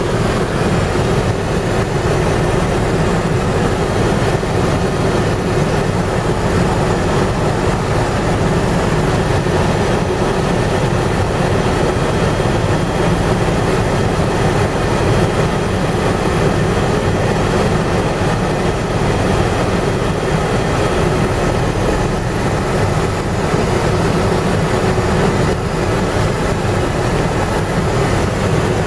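Loud, steady drone of a helicopter in flight heard from inside its cabin, with engine, rotor and rushing air blended into one even noise.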